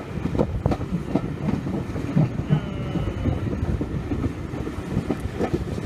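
Steam-hauled train, with GWR Small Prairie tank engine 5542 at its head, running along the line: a steady rumble of wheels on rail with irregular clattering knocks, heard from an open carriage window.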